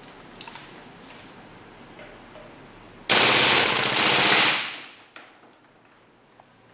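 WE M4A1 open-bolt gas blowback airsoft rifle firing one full-auto burst on green gas, about a second and a half long, starting about three seconds in, a rapid even rattle of shots that then fades away.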